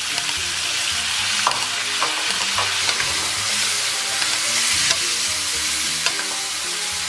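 Pork ribs sizzling in a wok of bubbling braising sauce, stirred with a wooden spatula. The spatula clicks sharply against the steel wok now and then.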